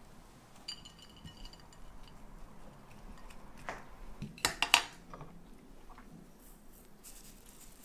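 Cooking utensils clinking and tapping against a frying pan and a ceramic plate as stir-fried anchovies are served, with a faint ring about a second in. The loudest is a quick cluster of sharp taps about four and a half seconds in.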